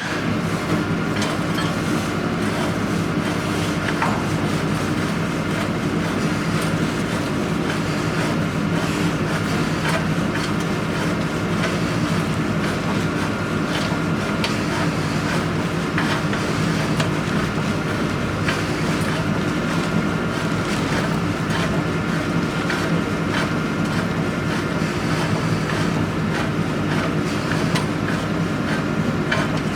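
Borehole drilling rig's engine running steadily with a low hum, with frequent small metallic clicks and knocks from the rods and casing being handled.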